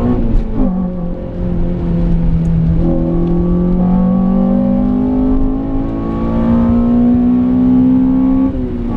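Honda Civic Type R (FN2) 2.0-litre four-cylinder engine running under load, heard from inside the cabin. Its pitch falls about half a second in, holds steady, then climbs slowly over the second half as the car accelerates, and falls again near the end.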